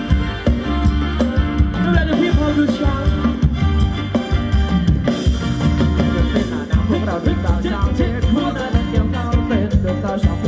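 Live band playing loud Thai ramwong dance music with a steady drum beat, and a singer's voice in the mix.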